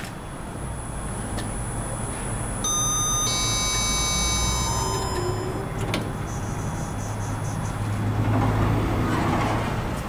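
OTIS Gen2 machine-room-less traction elevator arriving at the landing. A steady low hum runs throughout. A few seconds in, a cluster of clear electronic tones rings for about two seconds, followed by a short run of quick high beeps. Near the end the car arrives and its doors slide open.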